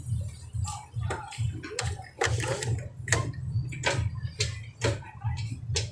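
Motor scooter's small engine running at low speed, a steady low pulsing hum, with irregular sharp ticks and clicks about twice a second over it.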